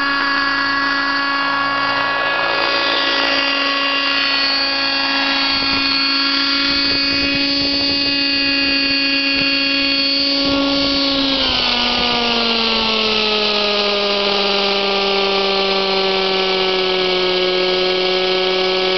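Kyosho Concept 30 RC helicopter's nitro two-stroke glow engine and rotor running with a steady high whine while it hovers. About twelve seconds in, the pitch slides down and then holds lower as the helicopter settles on the grass and the engine comes back toward idle.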